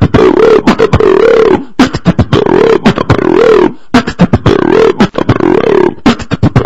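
Beatboxing: fast mouth-percussion hits over a continuous hummed melody that wavers up and down.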